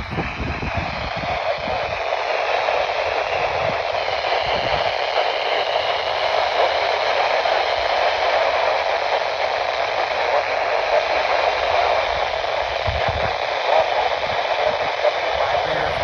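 Weather radio receiver hissing with steady static on a weak or untuned signal. A faint wavering whistle runs through the hiss for the first few seconds.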